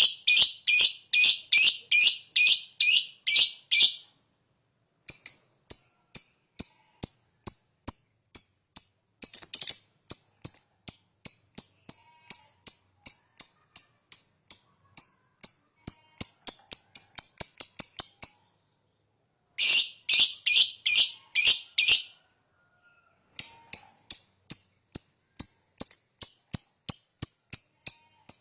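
Lovebird singing a long, rapid chatter of high, shrill chirps, about four a second, in runs of several seconds broken by short pauses.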